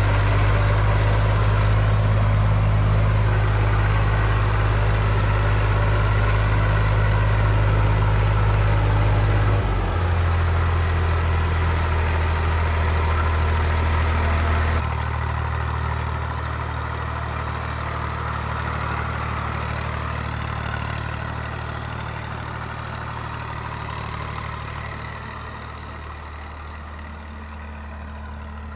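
IMT 542 tractor's diesel engine running steadily. Its note drops about ten seconds in, the sound falls off abruptly a few seconds later, and it grows fainter near the end.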